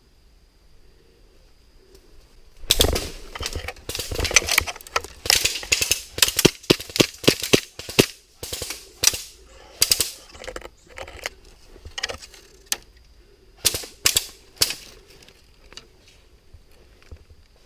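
Airsoft guns firing. A dense flurry of rapid shots starts about three seconds in, then thins to scattered single shots and short bursts.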